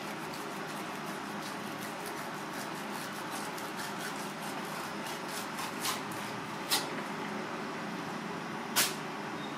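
A kitchen knife scraping and ticking along a plastic cutting board as it cuts the skin off a fish fillet, over a steady background hum. A few sharp clicks stand out in the second half, the loudest near the end.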